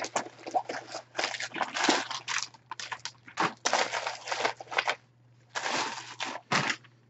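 Packaging crinkling and rustling as it is handled and unwrapped, in irregular crackly handfuls, stopping briefly about five seconds in.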